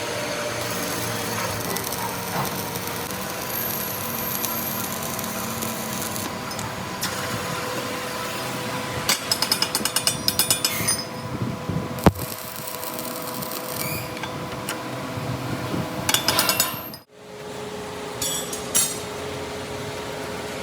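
Machine-shop machinery running with a steady hum, broken by bursts of rapid metallic rattling and one sharp knock about halfway through.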